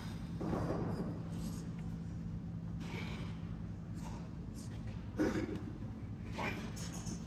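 A weightlifter breathing hard through barbell bench-press reps: a few sharp, forceful breaths, the loudest about five seconds in, over a steady low hum.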